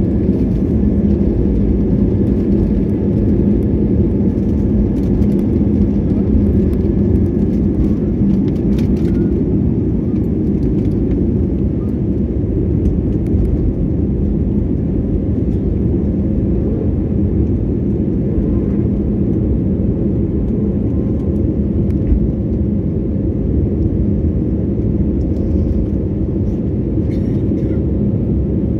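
Jet airliner's engines at takeoff thrust heard from inside the cabin: a loud, steady rumble with a low hum, through the end of the takeoff roll, lift-off and the climb-out.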